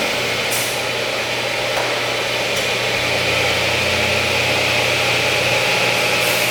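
CTD DM200 double-end 12-inch miter saw running, its Baldor 3-horsepower blade motors giving a steady hum and whine. Brief hissing bursts come and go several times over it.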